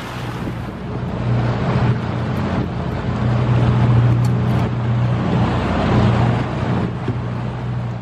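Boat engine drone: a steady low hum over wind and water noise, louder through the middle and easing near the end.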